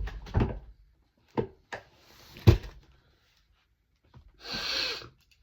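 A shipping box being handled: a few knocks and taps, the loudest about two and a half seconds in, then a short scratchy noise near the end.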